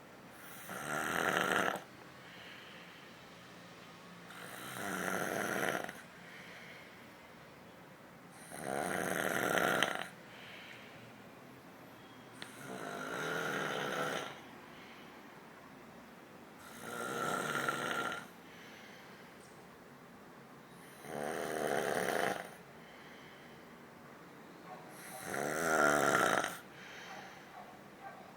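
Snoring during sleep in a slow, regular rhythm: seven snores, each about a second and a half long, coming about every four seconds with quieter gaps between.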